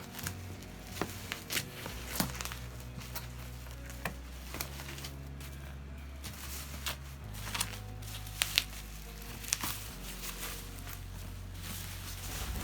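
Shipping package being handled and opened: crinkling and tearing of packaging with scattered sharp clicks and taps, the loudest a pair of snaps about eight and a half seconds in.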